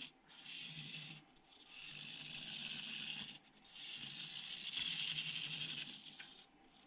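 The Turbo Racing 1/76 Mini RC car's tiny electric motor and gears whirring as it is driven across a tabletop, in three throttle bursts with short pauses between, the last burst the longest.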